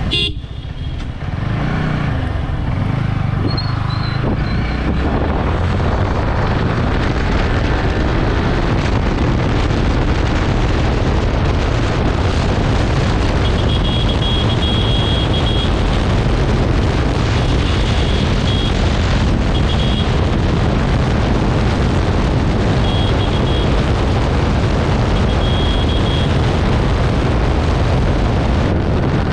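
Yamaha R15 V3's 155 cc single-cylinder engine accelerating hard up through the gears to about 125 km/h. Its note is clear at first, then a steady rush of wind over the microphone builds with speed.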